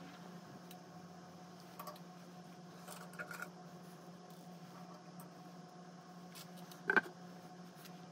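Quiet studio room tone: a steady low hum, with a few light clicks and taps and one sharper knock about seven seconds in.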